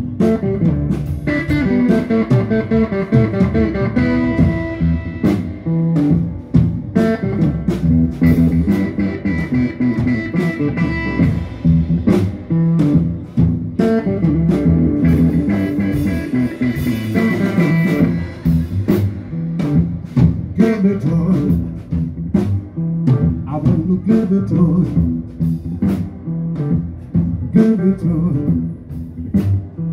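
Hill country blues played live on guitar and drums: a repeating guitar riff over a steady beat, with no singing.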